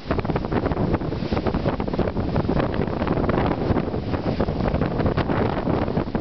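Gale-force northwesterly wind buffeting the camera microphone: a loud, ragged rumble of gusts with no letup.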